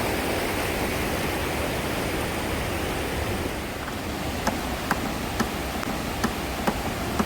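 Large waterfall rushing, a steady roar of falling water. From about halfway through, faint sharp ticks come about twice a second over it.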